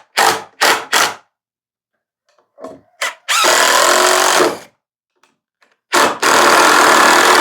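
Power drill driving screws into a wooden frame. First come a few short trigger bursts, then a steady run of about a second, and another that starts near the end.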